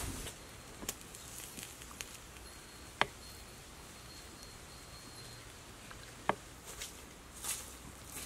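Wood fire crackling under a spit-roasting black chicken: a few sharp, scattered pops over a faint steady hiss, the loudest about three seconds in and another about six seconds in.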